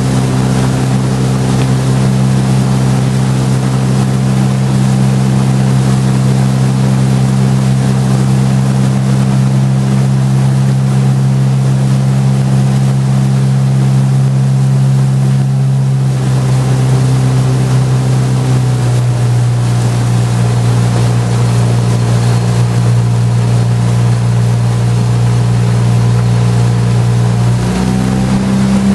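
Motor launch's engine running steadily at cruising speed over water and wind noise. Its note drops slightly a little past halfway and rises back up just before the end.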